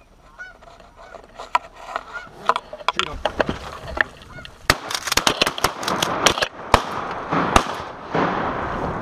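Geese honking as they come in close, growing louder through the second half. Several sharp cracks sound among the calls, one of them a shotgun shot fired at the birds near the end.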